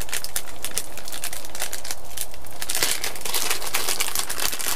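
Freshly lit kindling crackling and popping in a small Eldfell tent wood stove on its first test burn, a dense run of irregular sharp snaps that thickens about three seconds in.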